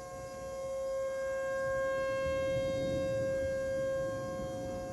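Outdoor tornado warning siren sounding a steady, unchanging tone. It swells louder over the first two seconds and eases off near the end, as a rotating siren does when its horn turns toward and then away from the listener. It is signalling a tornado warning.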